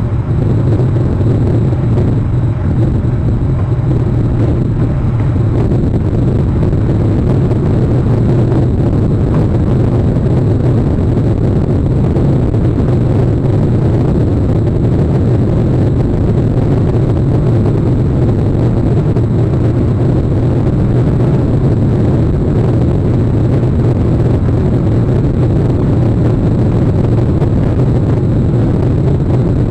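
Steady, loud low rumble of outdoor noise on a nest-camera microphone, even throughout, with no separate calls or knocks.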